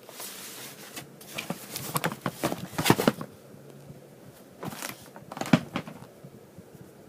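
Handling noise: crackling, rustling and sharp clicks in two bursts, the first a little over a second in and the second about five seconds in, with the loudest knocks near the end of each burst.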